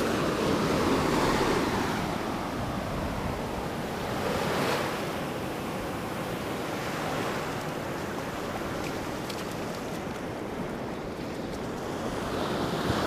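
Surf breaking and washing up a sandy beach, the wash swelling and falling, with wind buffeting the microphone.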